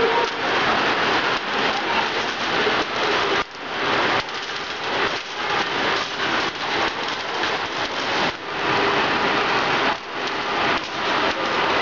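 Many pennies rolling round a polished coin-spinner funnel at once, making a dense, steady rattle that dips briefly a few times.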